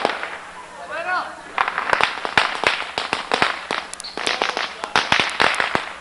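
A string of firecrackers going off: dozens of sharp pops in rapid, irregular succession for about four seconds, starting a second and a half in.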